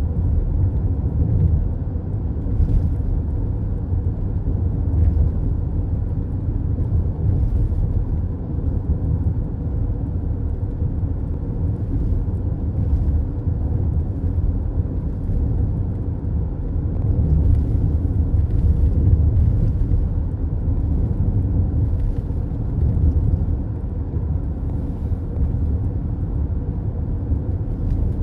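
Car cabin road noise while cruising on a highway: a steady low rumble of tyres and engine.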